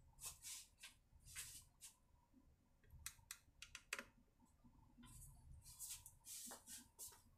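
Near silence, broken by a few faint scattered clicks and light taps, the loudest about four seconds in.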